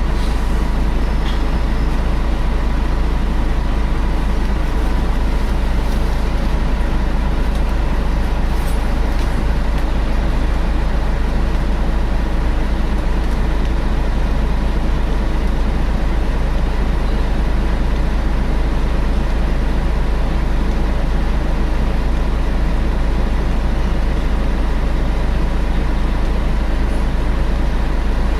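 Scania L113 CRL bus heard from inside while running: a steady diesel rumble with the rear cooling fan's constant hoover-like whine.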